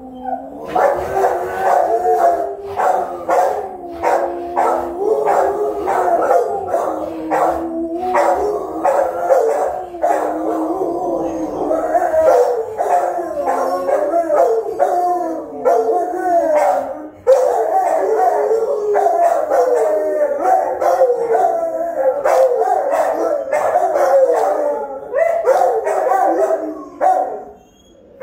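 Rottweilers howling and yelping together in a long run of wavering, rising and falling calls broken by short sharp barks. The calls die away shortly before the end.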